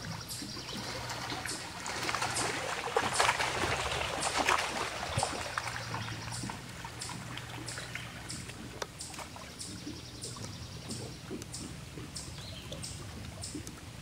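Small lake waves lapping and trickling against the side of a small boat, louder about two to six seconds in. A short high chirp or tick repeats about every two-thirds of a second throughout.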